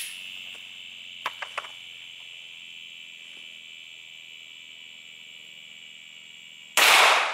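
Insects buzzing steadily, with a few small clicks about a second and a half in, then near the end a single sharp, loud shot from a Glock 43 9mm subcompact pistol firing a 135-grain Hornady Critical Duty round, dying away over about a second.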